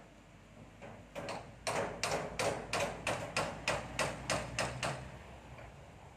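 A hammer striking the roofing sheets in a steady run of about a dozen blows, roughly three a second, starting about a second in and stopping near the five-second mark.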